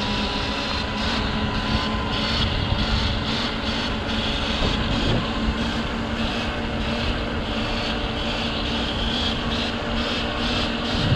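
Electric Sur-Ron dirt bike riding along a paved road: wind rushing over the action camera's microphone with tyre noise and a steady motor and drivetrain whine.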